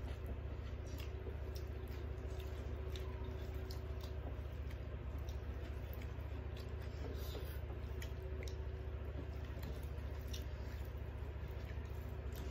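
Wet squishing and small clicks of rice and curry being mixed by hand on steel plates, and chewing, over a steady low hum.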